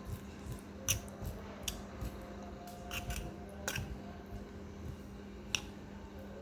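A utensil scraping and knocking against the pot as cooked rice is fluffed up: a handful of sharp, irregular clicks and scrapes, the clearest about a second in and near the end.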